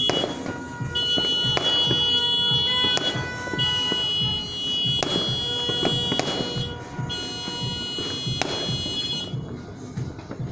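Aerial fireworks bursting, about six sharp bangs one to two seconds apart, over music with a steady high-pitched tone that stops and restarts every few seconds.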